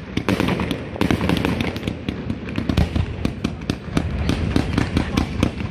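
Fireworks display going off in a rapid, continuous barrage of bangs and crackles.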